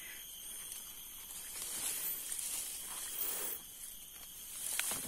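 Footsteps and rustling through dry leaf litter and undergrowth, with a few sharp twig clicks near the end.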